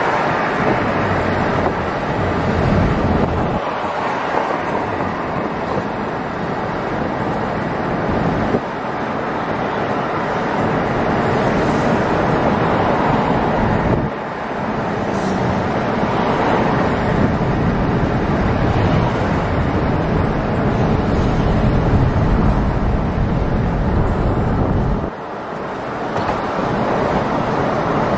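Steady rush of road and wind noise from a car driving at speed on a highway, with wind buffeting the microphone; the low rumble dips away briefly several times.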